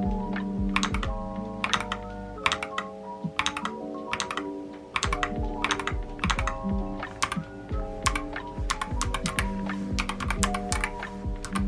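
Keys clacking in quick, irregular runs on a Yunzii Polar Bear mechanical keyboard, over soft background music.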